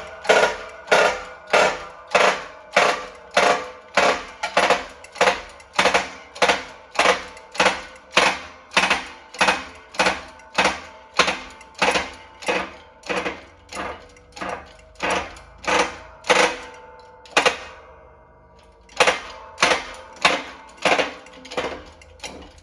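Shop press being pumped to push a pinion bearing off a differential pinion shaft with a bearing separator. Each pump stroke gives a sharp metallic clack with a short ring, about two a second, with one brief pause about two-thirds of the way through.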